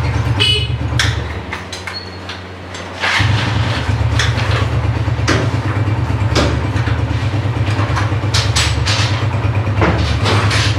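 Honda CG 125's air-cooled single-cylinder four-stroke engine running at idle. Its sound drops away a second or so in and comes back abruptly about three seconds in. Scattered sharp clicks or knocks sound over the running engine.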